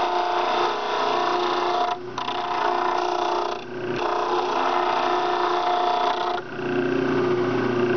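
Homemade 12-inch disc sander, driven by a 1/4 hp 1750 RPM motor, grinding a strip of rock maple against its 60-grit disc: a steady sanding hiss over the motor's hum. The hiss breaks off briefly twice and stops near the end as the wood comes off the disc, leaving the motor running.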